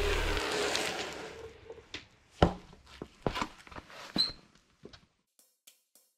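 A Onewheel Original electric board rolling past on concrete, its hub-motor whine and tyre noise fading over the first second or so. Then a handful of sharp knocks and clatters, the loudest about two and a half seconds in.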